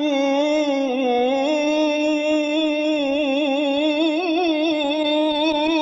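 A solo voice in an Arabic devotional song (nasheed) holds one long sung note. It wavers in ornamented turns about midway, then settles again.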